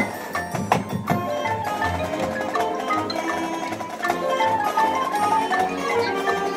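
High school marching band playing, with mallet percussion such as marimbas and xylophones carrying quick runs of notes over a regular low drum beat. A few sharp percussion hits land in the first second.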